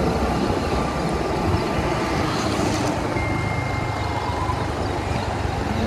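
Riding a scooter along a city street: steady engine, road and traffic noise.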